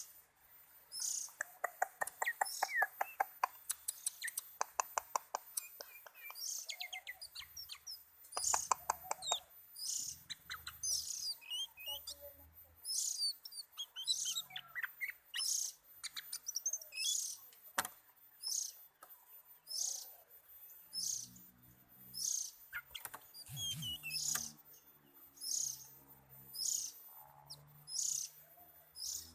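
Oriental magpie-robin (kacer) calling with short high chirps about once a second, with two stretches of fast rattling trills and a single sharp click midway.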